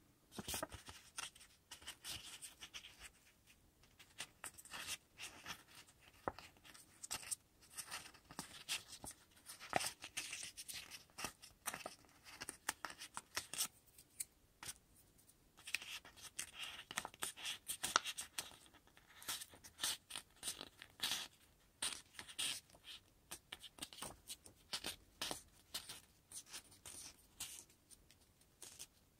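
Construction paper rustling and crinkling in the hands as a strip is bent, folded and creased, a run of short irregular crackles.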